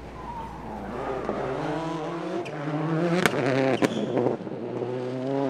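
Subaru WRX STI rally car's turbocharged flat-four engine revving as the car accelerates, its pitch climbing and growing louder, with two sharp cracks about three seconds in.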